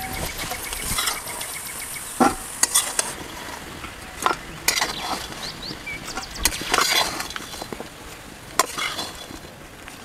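A long metal spoon scraping and knocking against a kadhai and a steel bowl in irregular strokes as fried potato and taro pieces are scooped out.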